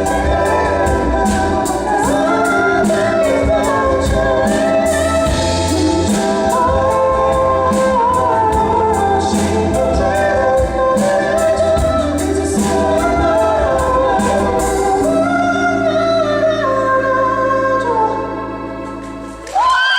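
A male singer performing a pop ballad live with a band, over a steady beat. About three quarters of the way through the beat stops and the song ends on a held chord that fades out. Audience screams and cheering break in at the very end.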